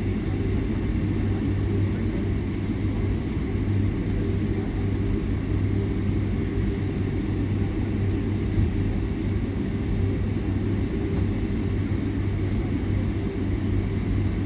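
Steady cabin noise of a jet airliner taxiing: a constant low engine hum at taxi power with a rumble underneath, unchanging in level.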